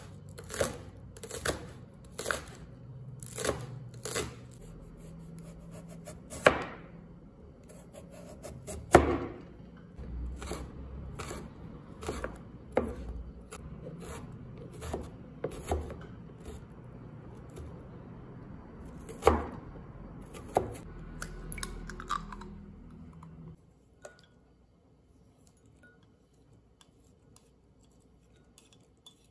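Cleaver chopping green onion and then carrot on a plastic cutting board: sharp knocks of the blade on the board, about two a second at first, then more spread out. The chopping stops about three quarters of the way through.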